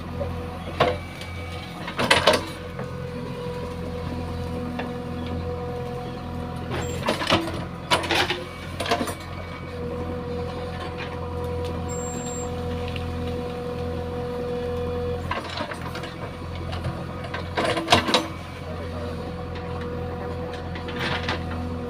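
JCB 3DX backhoe loader's diesel engine running steadily at working revs, with several sharp metallic knocks at irregular intervals from the machine at work.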